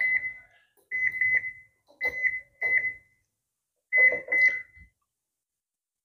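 Control panel of a Haier HWM72-678NZP top-load washing machine beeping as its program selector knob is turned step by step: about seven short, high beeps in uneven groups, stopping about five seconds in.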